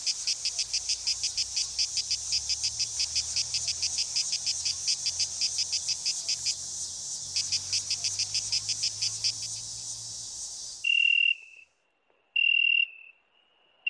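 High, pulsing insect chirring like crickets, about five pulses a second, over a faint low hum. It cuts off about eleven seconds in, followed by two louder short, steady electronic beeps.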